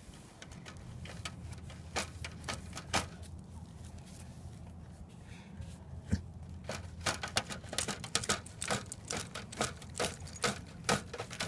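Dog mouthing and pawing at a tennis ball wedged in a wire mesh fence: irregular clicks and scrapes, coming thicker and faster in the second half.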